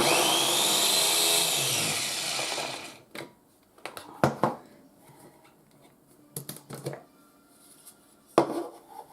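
Ninja food chopper's motor running for about three seconds as it blends cooked pinto beans, its whine rising and then falling away as it stops. Scattered knocks and clicks follow, with one brief loud burst near the end.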